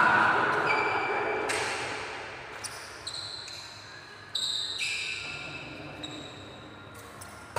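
Badminton rally: sharp racket hits on the shuttlecock, a few seconds apart, each echoing and fading in the hall, with short high squeaks of sports shoes on the tiled floor between them.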